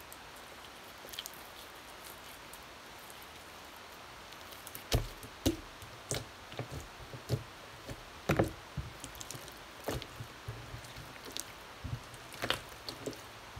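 Hands kneading and stretching a large mass of slime: irregular wet clicks and pops as it is squeezed and pressed, sparse at first and frequent from about five seconds in.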